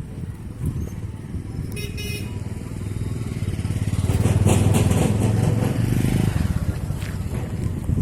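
A motor vehicle engine running, growing louder from about three seconds in and dropping off about six seconds in, with a short high-pitched tone about two seconds in.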